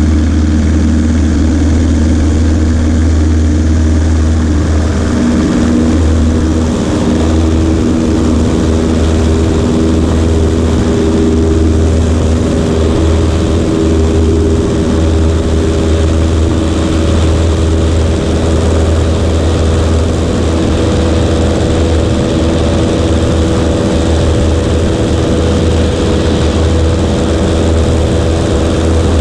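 Cessna 140A's piston engine and propeller running steadily, a loud, unbroken drone that shifts slightly in pitch partway through.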